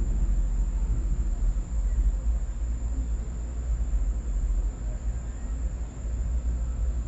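Low, steady rumble of a night thunderstorm, with a thin, high, steady whine above it.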